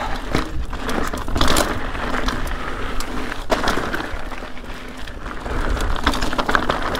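Ibis Ripmo full-suspension mountain bike descending a loose, rocky dirt trail: steady tyre noise over dirt and stones, with frequent sharp knocks and rattles as the bike hits bumps and rocks.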